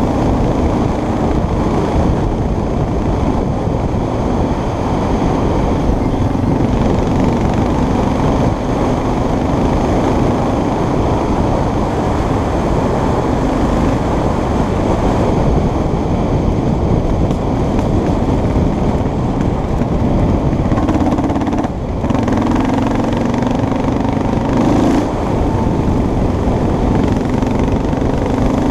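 A small vehicle's engine running while riding along a dirt road, heavy wind rumble on the microphone and tyre noise underneath. Its note wavers, drops out briefly a little past two-thirds of the way through, then comes back stronger and higher.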